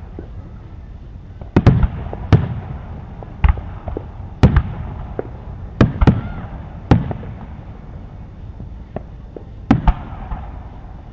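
Aerial fireworks going off: a string of about ten sharp bangs at uneven intervals, some in quick pairs, each trailing off in a low rumble.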